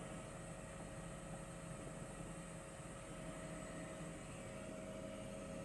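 Faint steady hiss with a constant hum and a high whine running through it; no distinct events.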